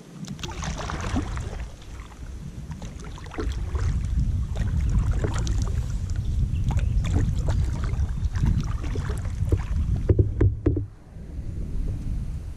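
Kayak being paddled: paddle blades splashing and dripping, with many short knocks and splashes over a steady low rumble that grows louder a few seconds in and eases off near the end.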